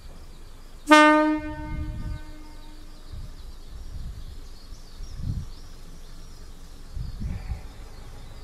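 Air horn of a KiHa 20 diesel railcar giving one short blast about a second in, its note fading away over a second or two, with low rumbling noise underneath.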